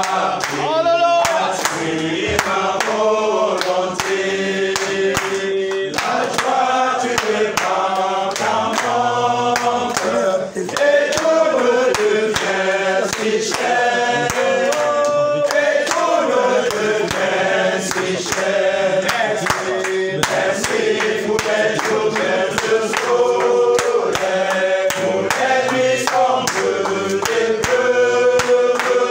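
A congregation of men singing a hymn together, clapping their hands in a steady rhythm with the song.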